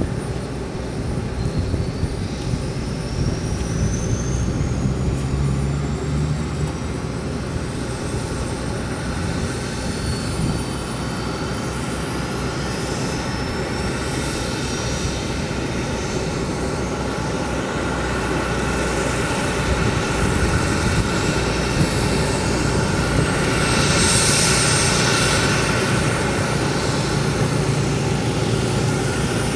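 Aircraft turbine engine noise that runs steadily throughout, with a thin high whine that climbs in pitch over the first several seconds and again around the middle. A louder hissing swell comes about three quarters of the way through.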